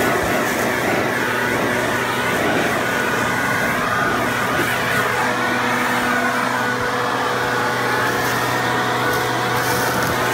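RedMax backpack leaf blower's two-stroke engine running steadily, with air rushing from its tube as it blows leaves along a roof and gutter.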